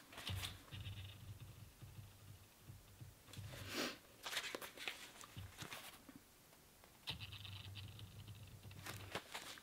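Pages of a paperback manga volume being turned and handled: short paper rustles and soft ticks, scattered through, the loudest about four seconds in.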